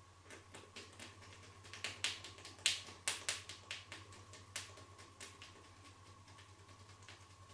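A run of sharp, irregular clicks and taps from the masseur's hands working during a chair massage, thickest and loudest about two to four seconds in, thinning out after five seconds, over a faint steady electrical hum.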